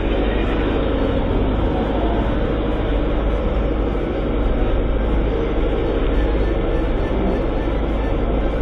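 Motorboat underway at speed: a steady rush of engine and water noise over a deep rumble.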